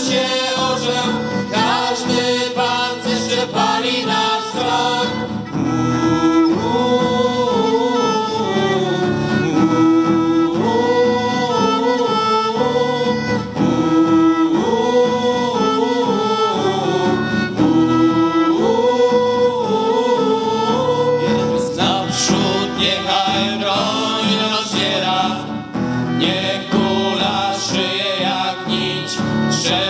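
Live acoustic band: a violin plays a flowing melody over a strummed acoustic guitar, with several voices singing together.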